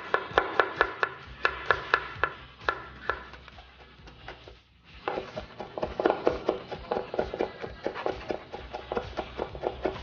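Kitchen knives chopping and mincing garlic cloves on a wooden cutting board: quick, regular knife strikes of about five a second that stop about four seconds in. After a short pause, two knives mince together in a longer, denser run of chops.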